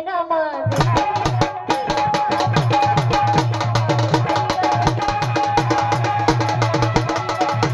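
Song music: a sung note glides down and ends within the first second, then an instrumental passage follows with fast, even drum strokes under a held melody line.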